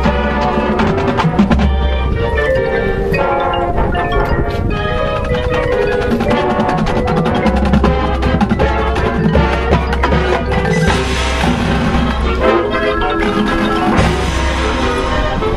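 High school marching band playing its field show, brass and winds over a steady stream of percussion strikes, with mallet instruments such as marimba, xylophone and bells prominent.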